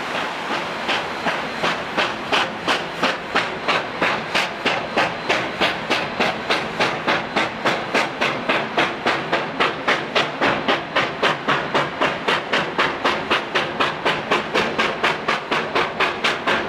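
Steam locomotive exhaust chuffing in a steady, even rhythm of about three beats a second, each beat with a hiss of steam. It fades in during the first second and then holds strong.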